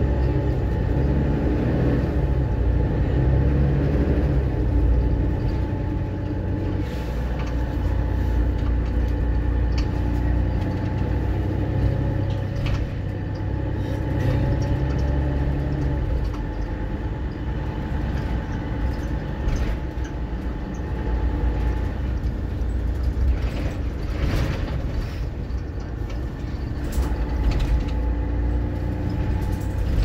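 Mercedes-Benz Citaro O530 bus's diesel engine running steadily under way, heard from inside the bus. The low rumble is heavier for the first half and eases off a little after about the halfway point, with occasional light knocks and rattles.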